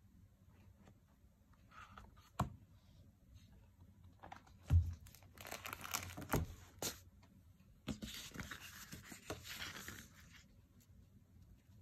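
Sheets of heavy printed paper being handled: two stretches of rustling and sliding, with a few knocks, the loudest a little under five seconds in.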